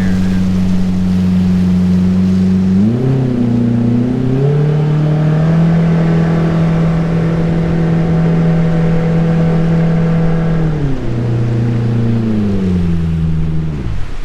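Jet boat's jet-drive motor running under way, its pitch stepping up twice as the throttle is opened, holding steady, then falling in steps near the end as it is throttled back toward idle.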